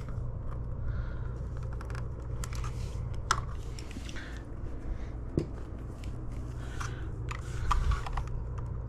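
Small scattered clicks and light rustling of hands working a wire connector onto a vacuum's replacement brush-roll switch, with a few sharper clicks in the middle and a steady low hum underneath.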